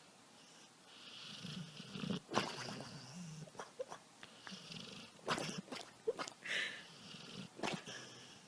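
A sleeping dog snoring softly in low breaths, broken by a few short, sharp sounds, the loudest about two seconds in.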